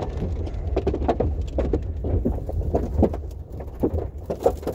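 Inside a car in a severe storm: a steady low rumble of wind buffeting the vehicle, with irregular sharp taps and knocks of rain and hail striking the roof and windshield.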